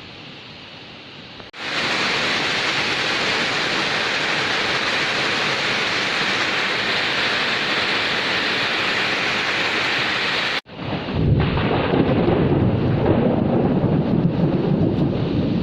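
Recorded heavy rain spliced from separate takes: a softer patter, then about a second and a half in an abrupt cut to a loud, steady downpour hiss. About ten seconds in, another abrupt cut to rain with a deep rolling rumble of thunder.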